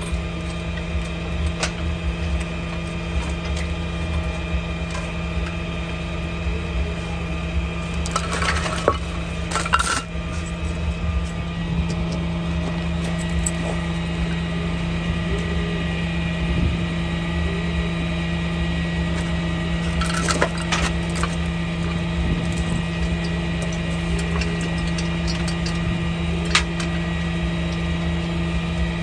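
A vehicle engine idling steadily, with a few metal clanks and rattles of chain and hardware being handled, bunched about eight to ten seconds in and again around twenty seconds.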